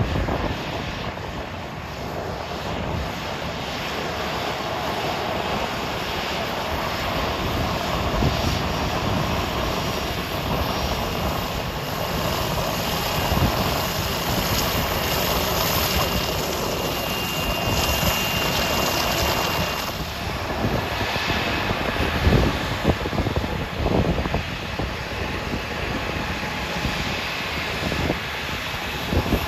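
Embraer ERJ regional jet's turbofan engines running at taxi power as it rolls past, a steady engine noise with a thin high whine for a few seconds in the middle.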